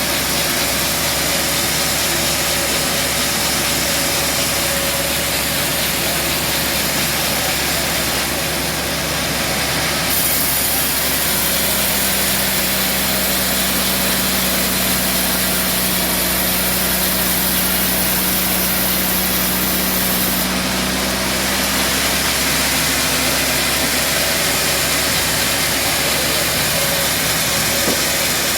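Band sawmill running steadily with a loud, even mechanical noise. A high hiss and a steady hum join about ten seconds in and drop away around twenty seconds in.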